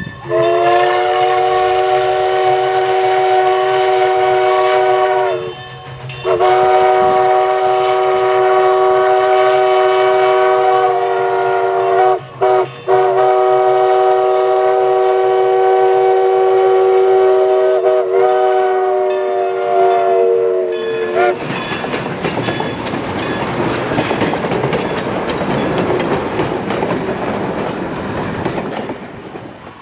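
Everett Railroad steam locomotive No. 11 blowing its chime whistle, several notes sounding together, in the long, long, short, long pattern of a grade-crossing signal, the last blast held for about eight seconds. Then, about 21 seconds in, the locomotive passes close by working hard, a loud rushing noise of exhaust and running gear that fades near the end.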